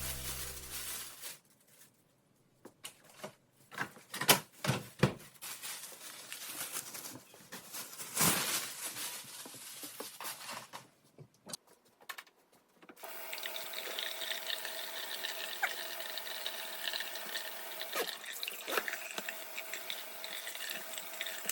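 Kitchen work sounds: dishes and utensils knocking and clinking in scattered clatters, then, from a little past halfway, a steady rush of water running from a tap into a sink.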